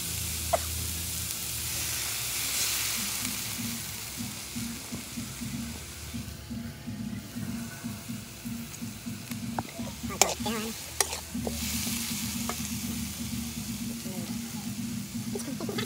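Water spinach and garlic sizzling in an aluminium wok while a metal spatula stirs and scrapes them in quick strokes, with a few sharp clinks of the spatula against the pan.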